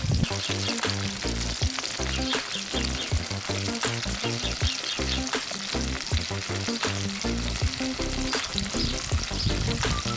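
Food sizzling and crackling as it fries, with background music underneath.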